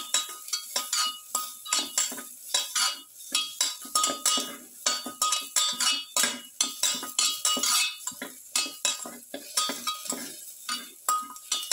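Metal spatula stirring and scraping sautéing garlic cloves and onions in a metal pan, clinking against the pan about three times a second, some strokes ringing briefly, over a faint sizzle.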